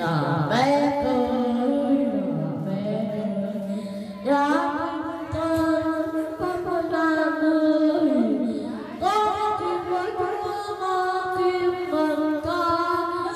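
A person singing solo into a handheld microphone, holding long notes and sliding between pitches.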